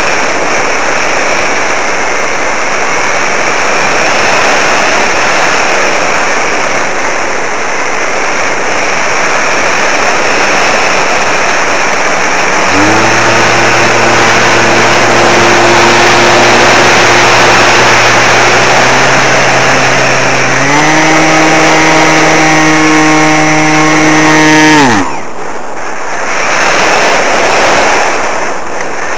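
A loud, steady rushing noise, with the whine of an electric RC model aircraft motor joining it about halfway through. The whine holds a steady pitch, steps up higher, then winds down in pitch and cuts off near the end as the motor is throttled back.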